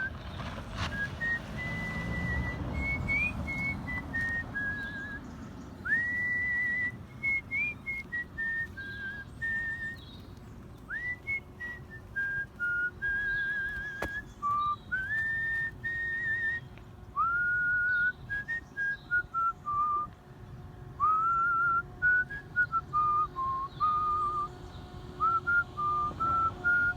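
A person whistling a melody by mouth in the art-whistling style: a single high line of held and quick notes, many sliding up into pitch, some with a wavering vibrato.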